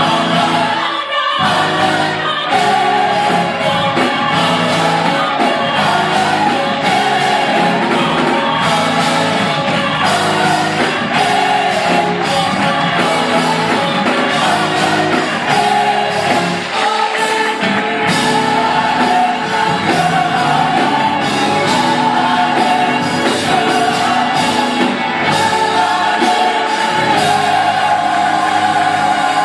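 Gospel choir singing with band accompaniment, held notes over a steady beat.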